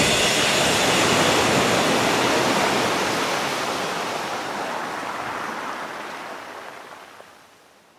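Ocean surf: a steady rush of waves washing in, slowly fading out.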